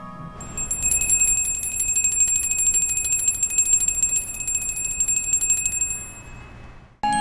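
A small metal bell ringing in a rapid, continuous trill of many strikes a second with a high ringing tone. It starts just under a second in and fades out about six seconds in, and a new chiming tone begins right at the end.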